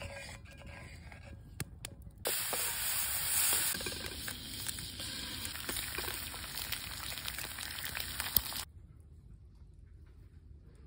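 Eggs and bacon sizzling hot in a wrought-iron frying pan. The sizzle starts about two seconds in and cuts off sharply near the end, with a sharp tap just before it stops.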